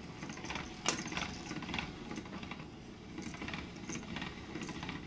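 Hand-cranked pasta machine turning, its spaghetti cutter rattling and clicking as a sheet of dough is cut into spaghetti, with a sharper knock about a second in.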